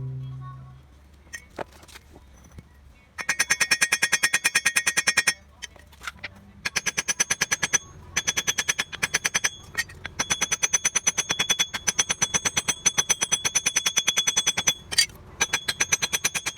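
Rapid, regular metallic clicking, about nine clicks a second, with a ringing tone in each click, starting about three seconds in and running in stretches of a few seconds with short breaks.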